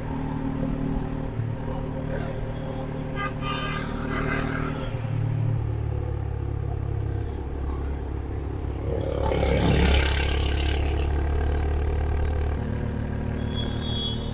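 Honda H'ness CB350's air-cooled single-cylinder engine running on the move. Its note steps to a new pitch twice as the rider changes speed, and a brief rush of noise comes about ten seconds in.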